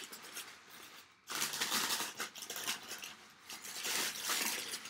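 Crumpled brown kraft packing paper crinkling and rustling as it is pulled away by hand from a wrapped item. The sound comes in two louder bouts, one just over a second in and one near the end.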